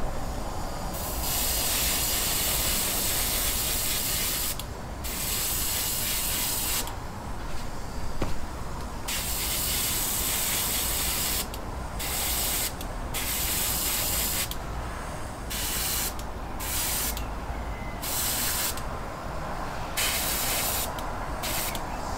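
Airbrush spraying a semi-gloss black base coat: a hiss of air and paint that starts about a second in and stops and starts again about a dozen times as the trigger is pressed and released, over a steady low hum.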